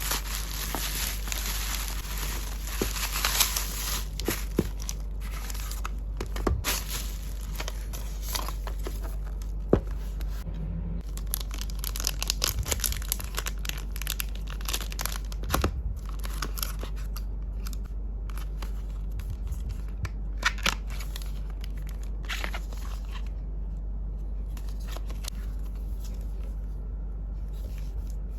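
Packaging being torn open and handled: tearing and crinkling, densest in the first few seconds, then scattered taps, clicks and short rustles over a low steady hum.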